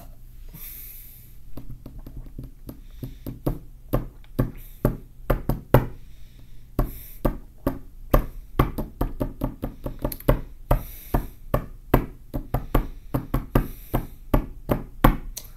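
Fingers tapping and drumming on a desk: a long run of sharp knocks, a few per second with uneven spacing.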